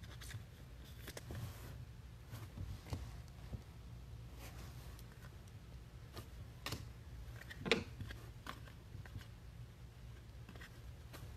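Football trading cards handled by hand, with faint slides and light clicks of card stock being shuffled through and set down, including a couple of sharper taps about two-thirds in, over a low steady hum.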